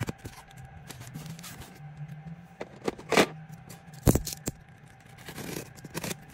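Hands handling a taped cardboard shipping box: scattered sharp taps and knocks on the cardboard, with a longer scrape a little past three seconds. Near the end a pointed cutter rasps along the packing tape on the centre seam.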